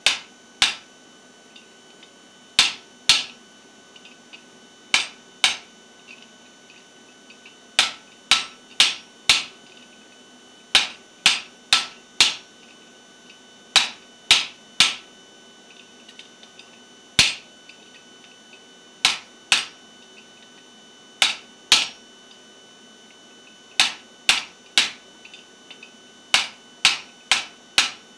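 Hand hammer striking the top die of a guillotine tool on the anvil, driving a butcher die into a hot steel bar to set a shoulder. Sharp ringing metal blows come in bursts of two to four, about two a second, with short pauses between bursts.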